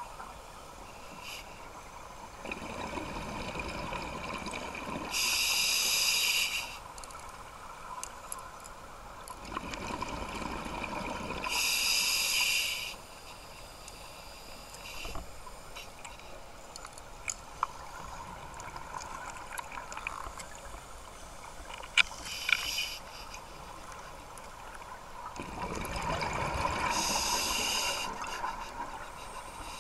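Scuba diver breathing through a regulator underwater: three breaths, each pairing a burst of exhaled bubbles with the hiss of the regulator on the inhale. A few sharp clicks fall between the second and third breaths.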